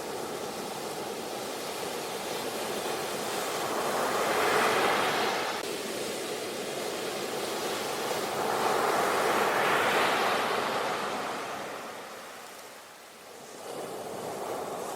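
Ocean surf: waves breaking and washing up the beach, two swelling to a peak in the first ten seconds, easing into a lull, then another wave rising near the end.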